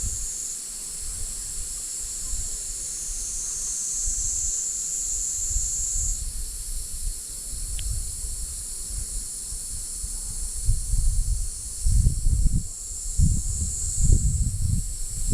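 Steady high-pitched insect chorus that swells in stretches, with gusty low wind rumble on the microphone growing stronger in the second half.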